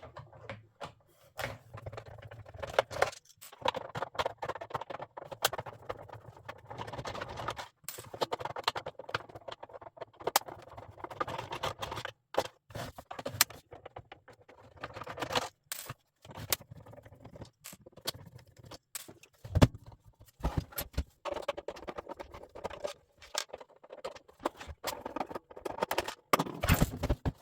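Screwdriver with a long star-head bit undoing the screws of a plastic boombox case, with many irregular clicks, scrapes and rattles of screws, tools and plastic housing being handled as the case is opened.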